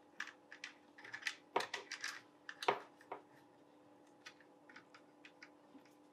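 Small clicks and ticks of electrical wires and a plastic wire nut being handled and twisted together at a garbage disposal's wiring connection, a dense cluster of louder clicks in the first three seconds, then sparser, fainter ticks. A faint steady hum underneath.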